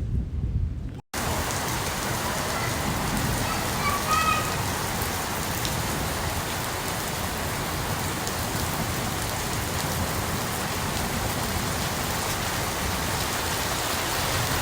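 Steady rain falling, an even hiss, which begins after a sudden cut about a second in.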